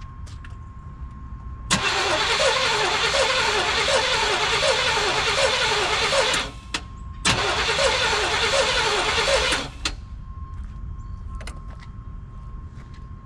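1989 GMC Sierra's starter cranking the engine in two attempts, about four and a half seconds and then about two and a half seconds, with an even pulsing rhythm; the engine does not catch, since no fuel is reaching the injectors.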